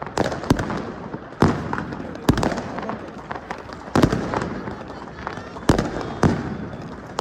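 New Year fireworks going off: a run of sharp bangs about once a second, each with a trailing rumble, over continuous crackling from shells and firecrackers.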